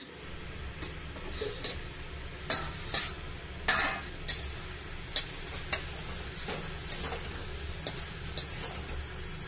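Metal spatula stirring and scraping cooked pumpkin pieces in a metal kadhai, with about a dozen irregular clinks and scrapes against the pan.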